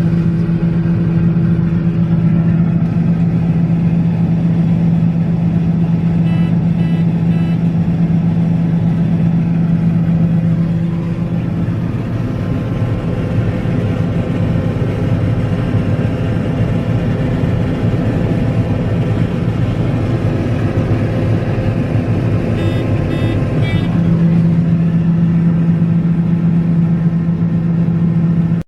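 Combine harvester running steadily while harvesting soybeans, a continuous engine drone whose steady tone weakens in the middle and comes back strong near the end. Two short runs of quick high beeps sound, about a quarter of the way in and again near the end.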